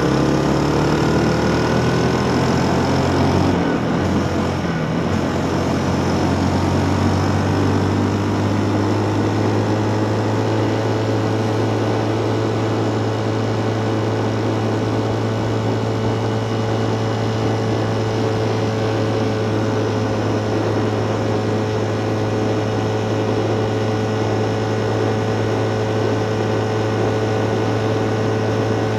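Motorcycle engine pulling up through the revs for the first few seconds as the bike speeds up, then holding a steady drone at a cruise of about 75 km/h.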